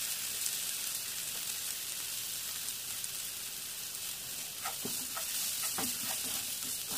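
Chopped onion, capsicum, green chilli and tomato sizzling steadily in hot oil in a frying pan. A spatula scrapes and stirs across the pan a few times in the second half.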